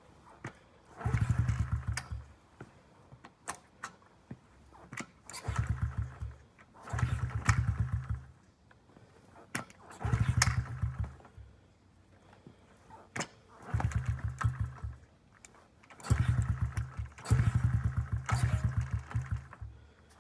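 Honda CRF50F pit bike's small single-cylinder four-stroke engine being kickstarted over and over: about eight kicks, each turning it over in a quick pulsing burst of about a second that dies away without the engine catching, with clicks between kicks. The owner blames the long kickstart on leaving the choke on too long.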